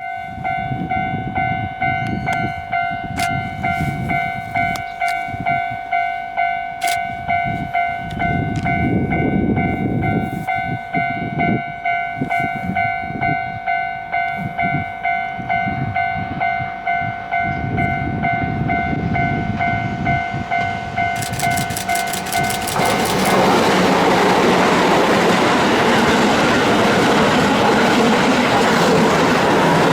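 Railway level-crossing alarm ringing in a steady, regular rhythm. About three-quarters of the way through, a Keihan 8000 series electric express train arrives and passes over the crossing, and its loud running noise and wheels on the rails drown out the bell.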